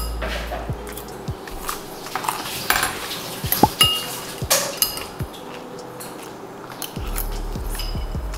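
Metal cutlery clinking and scraping against a dish while eating: a string of irregular sharp clinks, a few ringing briefly.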